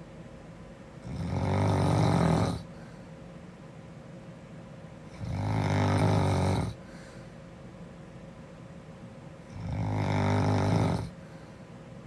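A girl snoring in her sleep: three loud snores about four seconds apart, each lasting about a second and a half.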